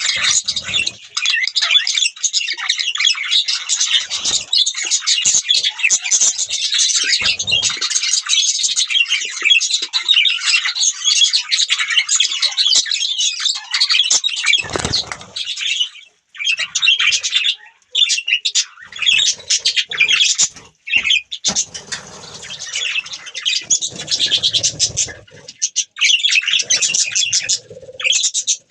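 Budgerigars chirping and chattering together: a dense, high, continuous warble that breaks into bursts with short gaps in the second half, with a few low bumps among it.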